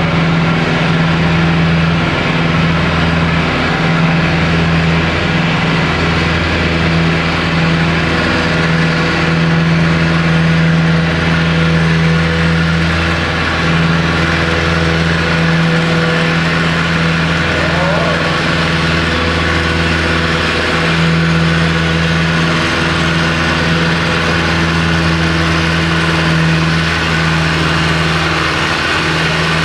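Antique farm tractor's engine running steadily at one constant pitch while pulling a weight sled down the track.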